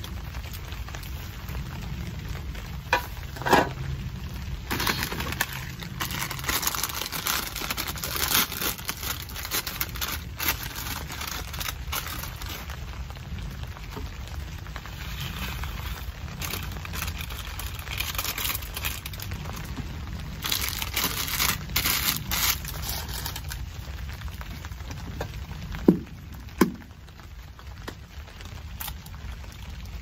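Steady rain on a tarp, with stretches of crackling and rustling. An aluminium mess tin clanks sharply with a short ring a few seconds in, and again twice near the end.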